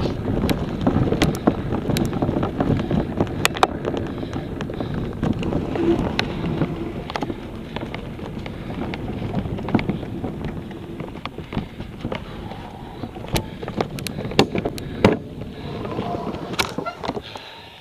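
Rumble and rattle of a Garmin VIRB action camera jolting over bumpy grass, with frequent sharp knocks and wind on the microphone. It grows quieter in the second half as the movement slows.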